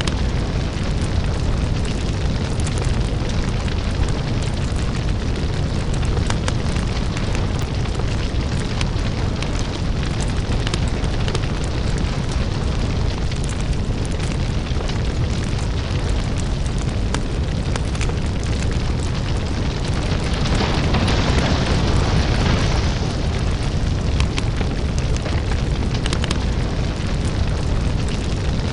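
Crackling lava: a deep, steady rumble with dense crackling and popping throughout. About two-thirds of the way through, a louder hissing surge swells for a few seconds and then settles back.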